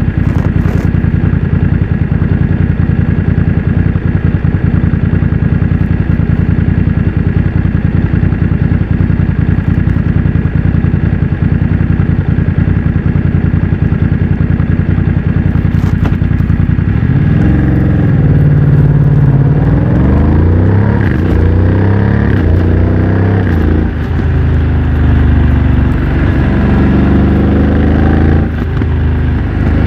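BMW F900 XR's parallel-twin engine through a MIVV X-M1 aftermarket exhaust, running steadily at an even cruise for most of the first half. It then accelerates hard, with the pitch climbing and dropping back several times as it shifts up through the gears with the quickshifter.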